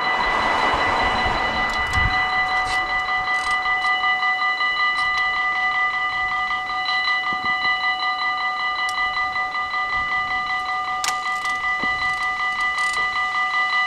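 Dutch level-crossing warning bell ringing in rapid, even pulses as the crossing activates and its barriers lower. A car drives past in the first couple of seconds.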